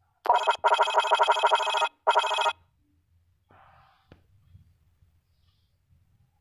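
Electronic trilling sound effect of a robot HUD, like a phone ring, in three bursts: a short one, a longer one of a little over a second, and another short one.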